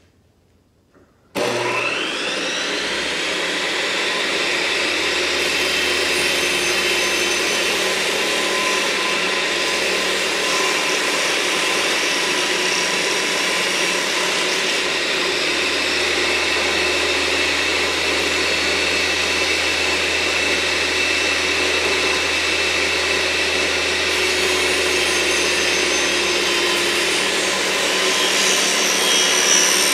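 Table saw switched on about a second and a half in, then running steadily with a shallow blade set for a 1/4-inch-deep cut, as a board is run through to cut the notch where the frames will rest.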